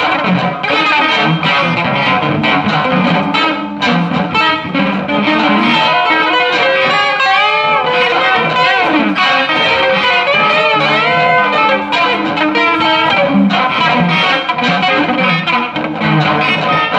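Electric guitar through effects and loops, playing dense layered free improvisation: overlapping sustained notes with wavering, gliding pitches and a little distortion.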